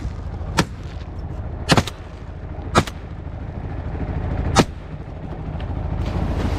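12-bore shotgun fired repeatedly: about four sharp shots spaced one to two seconds apart, over a low steady rumble.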